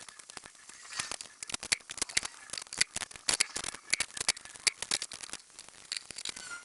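Irregular sharp clicks and taps, several a second, of tools and parts being handled while fitting motorcycle parts.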